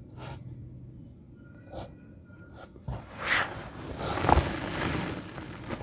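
Chunks of dry clay dirt crumbled by hand: a few short crunches, then a longer, louder stretch of crumbling starting about three seconds in.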